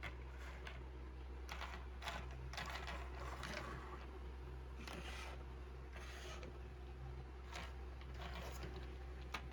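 Plastic clicks, rattles and rustling from a toy Lego building-block train set, coming in irregular bursts over a steady low hum.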